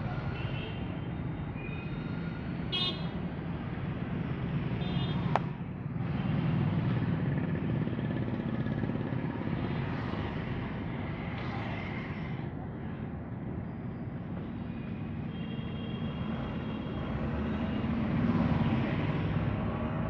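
Steady street traffic noise, vehicles running past with a low rumble, broken by a few short high tones and one sharp click about five seconds in.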